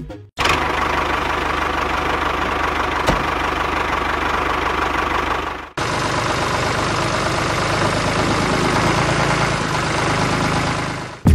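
Small DC motor of a homemade toy tractor running steadily. It breaks off briefly about halfway through, starts again, and stops near the end.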